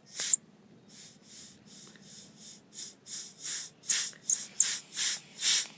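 Compressed air hissing from a Mastercraft air compressor's nozzle pushed into a chipmunk's skin, in short repeated bursts that grow louder about halfway through, with a few high squeaks among them.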